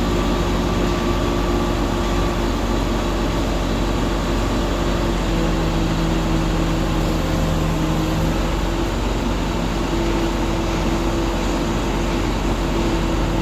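A crane's engine running steadily, with an even hum that holds its pitch.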